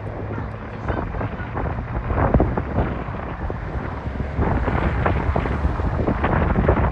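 Wind buffeting the microphone, with a low rumble and many short crackles.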